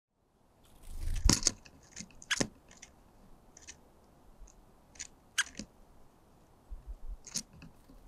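White-backed woodpecker pecking at food on a wooden bird feeder: irregular sharp taps and clicks, with louder knocks about a second in, at two and a half, at five and a half, and near the end.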